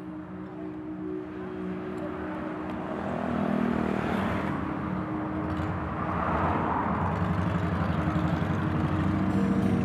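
Motorcycle engines idling and revving, growing louder about three seconds in and staying up.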